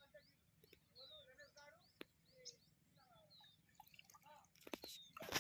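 Faint bird chirps, short falling notes repeated every second or so, over near silence, with a few sharp clicks and a louder rustling knock near the end.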